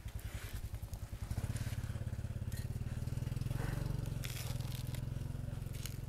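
A small motor running with a low, rapid throb that grows louder and steadier about a second in, with a few sharp clicks over it.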